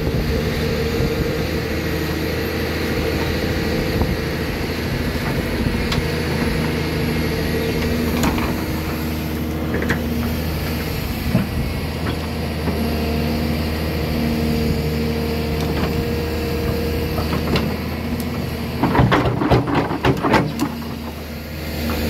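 A large engine running steadily, its pitch shifting slightly, with a cluster of sharp knocks near the end.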